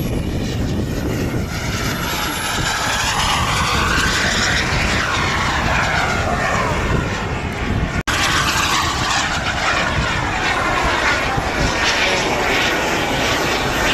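Jet engine of a radio-controlled F-15 Eagle model aircraft running steadily as it flies past overhead, its pitch sweeping up and down as the model banks and passes. The sound cuts out for an instant about eight seconds in.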